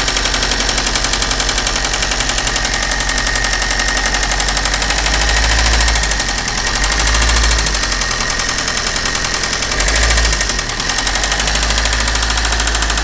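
Maruti Suzuki Ritz engine running with a fast, loud knock, rising briefly about three times. The mechanic puts the noise down to trouble inside the engine, in the pistons or cam, not to the injectors or wiring.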